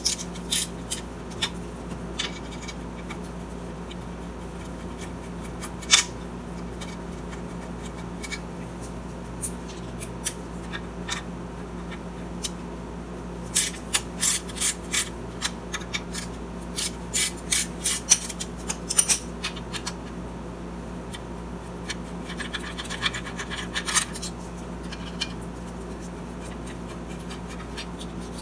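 Metal clicks and scrapes of hand tools and parts as a motorcycle voltage regulator is unbolted and worked off its mount, with a busy run of quick clicks about halfway through. A steady low hum sits underneath.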